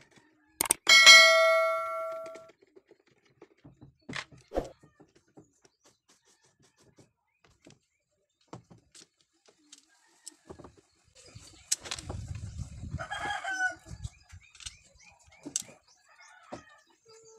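Subscribe-button animation sound effect: two sharp clicks, then a bell ding that rings out and fades over about a second and a half. After it come scattered light clicks and knocks from handling a plastic Bluetooth speaker, and a brief chicken call around thirteen seconds in.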